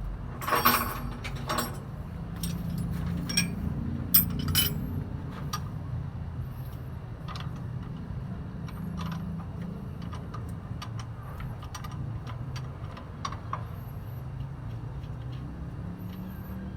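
Metal clinks and knocks of hand tools at work on a fire truck's starter motor, a few sharp ones near the start and about four seconds in, then scattered lighter ticks, over a steady low hum.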